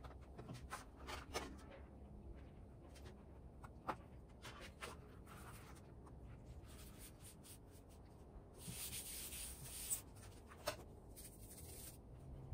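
Faint rubbing and scuffing of thin 2 mm EVA foam sheets being handled and pressed together on a tabletop, with scattered light taps and a longer hissing rub about nine seconds in.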